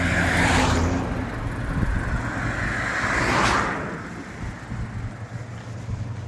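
Road vehicles rushing past twice, about three seconds apart, each a swelling and fading whoosh of tyre and wind noise over a steady low engine and road rumble.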